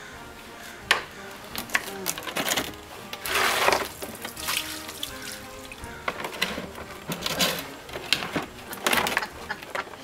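Scattered knocks and bumps of a hollow plastic children's table being handled and tipped on its side, with splashing as trapped water pours out of it onto the paving.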